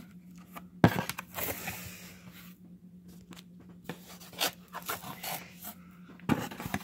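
Cardboard box flaps and inner packaging being handled while a monitor box is opened: a sharp knock about a second in, then intermittent scraping, rustling and clicks of cardboard.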